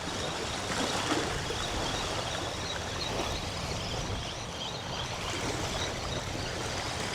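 Steady wind buffeting the microphone over the wash of small bay waves along the shore.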